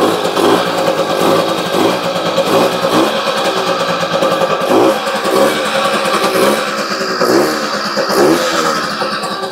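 Balkan 50 moped's small two-stroke single-cylinder engine running cold just after starting, revved up and down over and over on the throttle. It is a test run of the carburettor after its punctured float was repaired.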